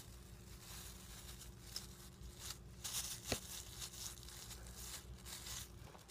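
Scissors snipping at the crocheted yarn cover of a hacky sack: faint cuts and rustling, with one sharper snip about halfway through.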